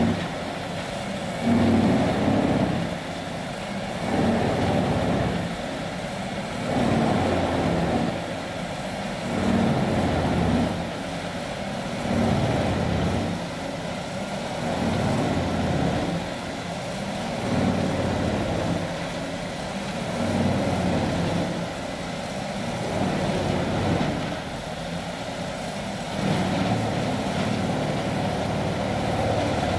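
Vermeer 6000TX wood grinder running under load as it grinds ash logs and mixed hardwoods: a continuous heavy mechanical roar. The roar swells and eases about every two and a half seconds as the machine takes in wood.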